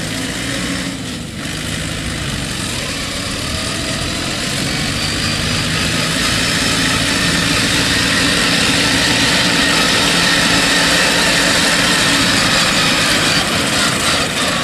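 Engine of a farmer-built straw-gathering machine, converted from an old harvester, running steadily. It grows gradually louder over the first half, then holds steady.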